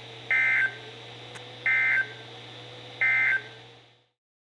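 Three short bursts of NOAA Weather Radio SAME digital data tones, the Emergency Alert System end-of-message code that closes a warning broadcast. Each burst is a harsh two-tone warble lasting about a third of a second, a little over a second apart, over the radio's steady hiss and hum. The radio audio fades out near the end.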